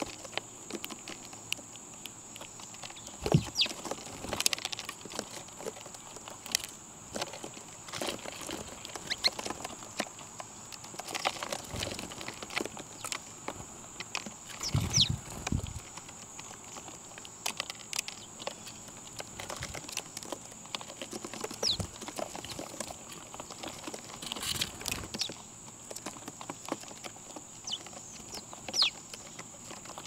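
Birds feeding on scattered seed: irregular light pecking taps and scuffling, with a few short high chirps and occasional soft thuds, over a steady high-pitched hiss.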